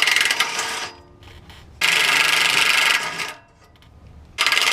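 Three loud hissing bursts, the middle one the longest, each about a second or so, with quieter gaps between them.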